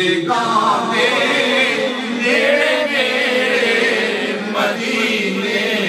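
A man's devotional chanted recitation, amplified through a microphone, in long held melodic lines that rise and fall.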